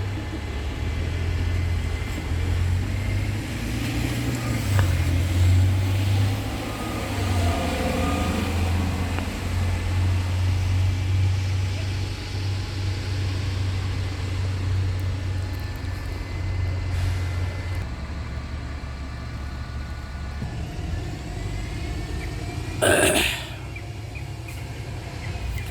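Wind buffeting the microphone: a heavy, uneven low rumble that eases about eighteen seconds in. A short, loud rustle comes near the end.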